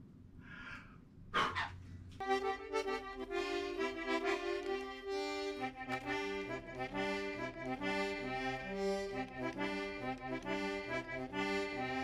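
Accordion music starts about two seconds in: a lively tune with chords over a bass line that moves from note to note.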